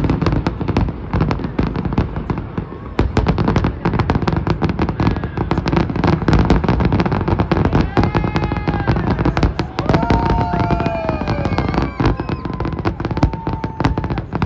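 Aerial fireworks display going off in a dense, continuous barrage: rapid bangs and crackling over a steady low rumble, with a few high whistling tones in the second half.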